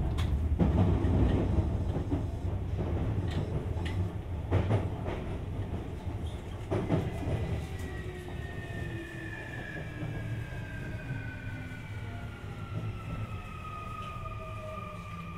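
Sotetsu 20000 series train heard from inside the car: wheel-on-rail rumble with a few sharp rail-joint clacks, then from about halfway a whine from its Hitachi SiC-VVVF inverter drive that falls steadily in pitch as the train slows under braking.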